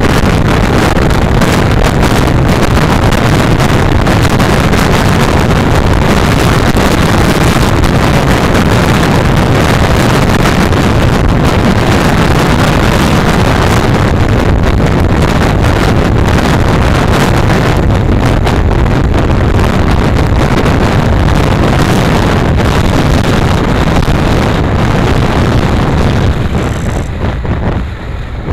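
Wind noise buffeting the onboard camera's microphone on a Honda NC700X motorcycle at highway speed, mixed with the bike's running and road noise. It eases off near the end as the bike slows into a bend.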